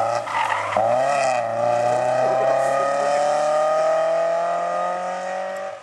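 BMW E30 rally car's engine under hard throttle out of a corner. The note wavers for about the first second, then rises steadily in pitch as the car accelerates away.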